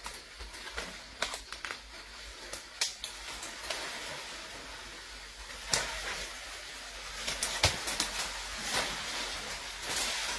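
Asian elephant pushing through dense jungle undergrowth: leaves rustling and twigs snapping in irregular crackles, which come thicker and louder in the second half.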